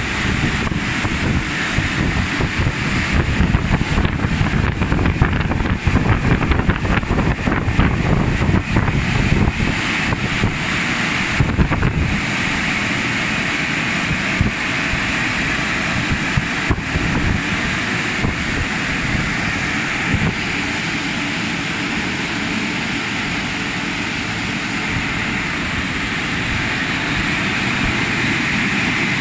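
CF-330 rollover car wash machine's drying blowers running, a steady loud rush of air, rougher and more uneven in about the first twelve seconds.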